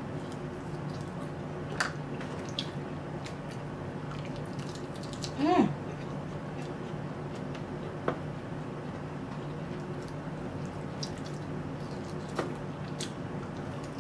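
Wet mouth clicks and smacks from sucking and gnawing meat off a grilled pork chop bone, with one louder, short rising slurp about five and a half seconds in. A steady hum from a room air conditioner runs underneath.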